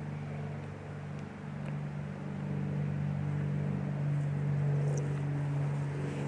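Steady low drone of a vehicle engine running, a hum that grows a little louder toward the middle.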